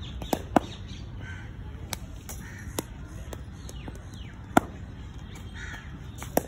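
Sharp cracks of cricket balls striking bats and pitching on a concrete net pitch, several scattered at uneven intervals and loudest early on and again near the end, with birds calling faintly.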